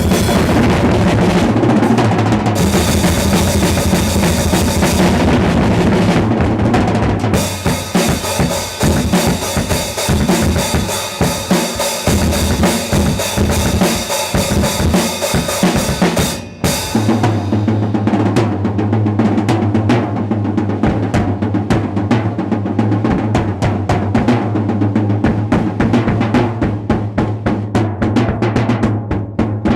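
Drum kit played fast and hard, with bass drum and snare in dense, rapid strokes. A brief break comes about halfway through, then the playing picks up again.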